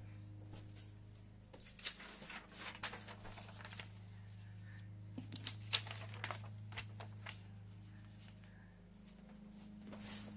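Short rustles and crinkles of paper being handled, clustered in two bunches of quick sounds with a longer rustle near the end, over a steady low hum.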